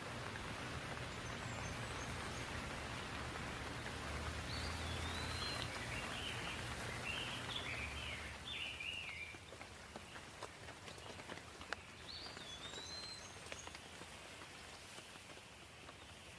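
Steady rain falling, with a bird calling in short whistled phrases over it. The rain eases about halfway through, leaving scattered drips, and the bird calls again near the end.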